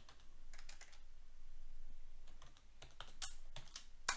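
Typing on a computer keyboard: irregular short runs of key clicks.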